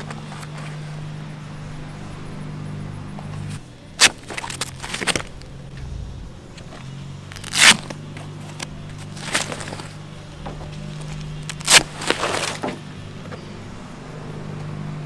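Hook-and-loop straps on a rooftop awning's travel bag being pulled open in short rasping rips, with a few sharp knocks, over a low steady hum.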